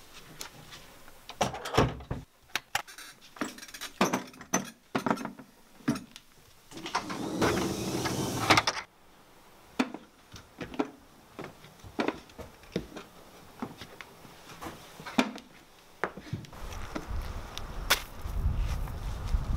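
A series of knocks, bumps and clatter from a classroom door being pushed open and people climbing onto a counter and out through a window. About seven seconds in there is a rustling stretch of about two seconds. Near the end, wind rumbles on the microphone outdoors.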